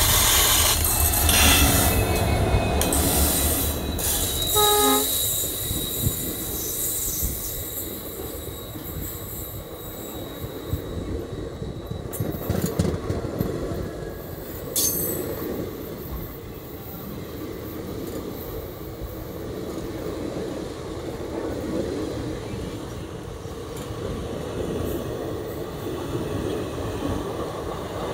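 WDP4D diesel locomotive's EMD 16-cylinder two-stroke engine rumbling loudly as it passes, then the train's ICF passenger coaches rolling by with steady wheel clatter and knocks over rail joints, slowly getting quieter. A short pitched tone sounds about five seconds in.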